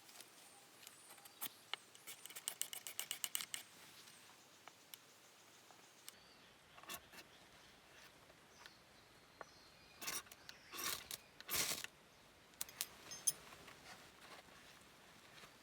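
Small handling noises of camp gear: a quick run of sharp clicks, roughly eight a second, then a few short rustling scrapes.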